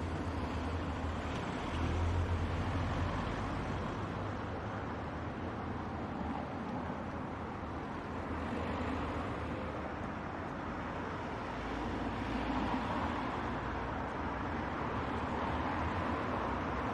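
Car driving along a road: a steady rumble of road and engine noise, swelling a little now and then.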